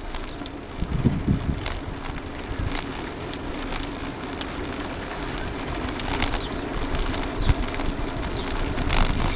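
Wind rumbling on the microphone and the rolling rattle of a bicycle ridden along a concrete path, with scattered small clicks and knocks.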